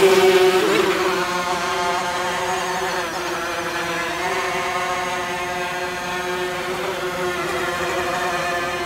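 Home-built tricopter's three electric motors and propellers buzzing in flight, a steady pitched hum that wavers slightly with the throttle. It is loudest for about the first second, then settles a little quieter.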